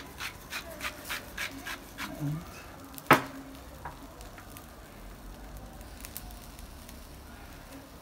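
A small seasoning shaker shaken over raw burger patties in quick strokes, about three a second, for the first two seconds; a single sharp click about three seconds in is the loudest sound. Beneath it the patties sizzle faintly on the charcoal grill.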